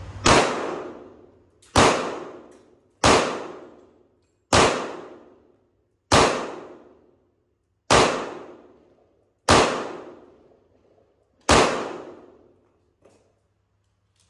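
Eight single shots from a Sig Sauer 1911 Spartan .45 ACP pistol firing full metal jacket rounds, about one and a half seconds apart, each ringing out for a second or so. A couple of faint clicks follow near the end.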